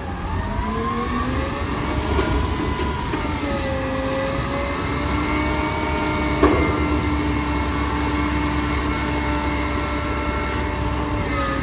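Vehicle engine running, its pitch dipping and rising twice before holding steady, with a single knock about six and a half seconds in.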